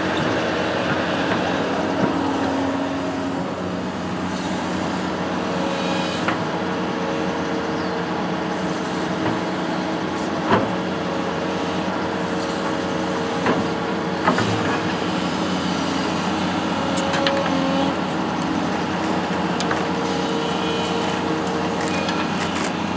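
Construction machine's engine running steadily, with a few sharp clicks and knocks from the machine.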